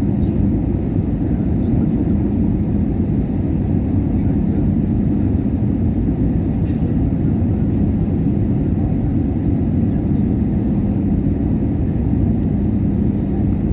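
Airbus A320 airliner in flight, heard from inside the cabin: a steady low rumble of engines and rushing air, with a constant hum underneath and no change in level.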